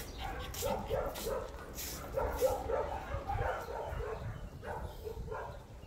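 French bulldog barking repeatedly in a quick string of short calls, several a second.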